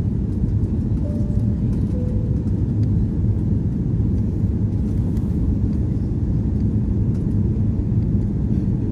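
Steady cabin noise inside an Airbus A340-600 airliner on approach: a constant low rumble of the Rolls-Royce Trent 500 engines and airflow over the fuselage, heard from a window seat over the wing.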